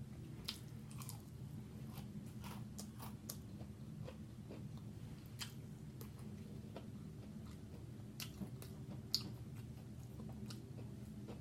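A person chewing and biting food: irregular small wet clicks and crunches, with one sharper crunch about nine seconds in.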